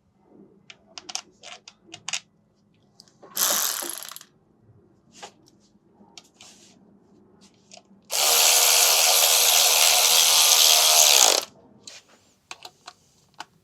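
Light clicks of metal parts and tools being handled, a short burst from an electric drill a few seconds in, then the drill running steadily for about three seconds before winding down.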